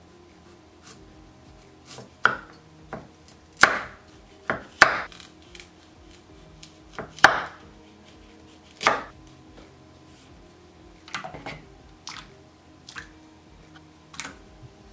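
Kitchen knife cutting through raw sweet potato and knocking on a wooden cutting board: irregular sharp chops, loudest in the first half and lighter near the end.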